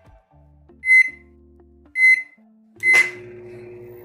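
Philco PMS24 microwave oven's keypad beeping three times about a second apart as a cooking time is set, then the oven starting up with a steady hum as a heating cycle begins.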